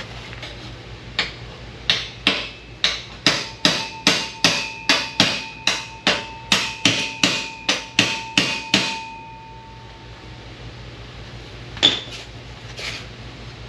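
A hammer striking sheet steel: a steady run of about twenty blows, roughly three a second, with the metal ringing. A single further strike comes near the end.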